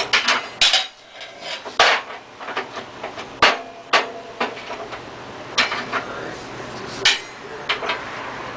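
Irregular metallic knocks and clanks on the wrought iron sign post, about a dozen sharp strikes at uneven intervals, like hammer taps while the post is being adjusted.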